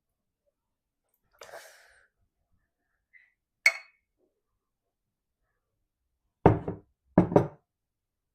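Glassware handled on a table: a soft rustle, one sharp glassy clink, then two dull knocks a little under a second apart.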